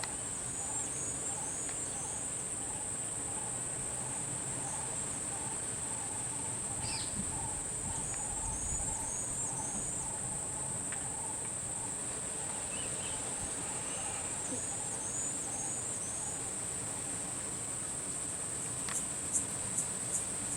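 Steady high-pitched drone of insects, with a softer repeated chirping beneath it through the first half and a few sharp clicks near the end.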